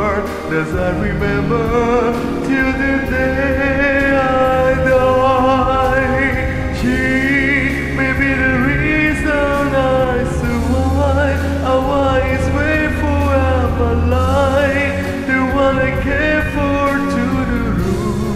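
A slow ballad playing through a passage without lyrics: a wavering lead melody over steady accompaniment, with a deeper bass note sounding for a few seconds past the middle.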